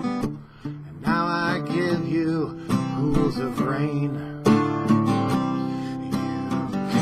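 Strummed acoustic guitar with a man singing over it; after a short lull the voice and chords come back in about a second in.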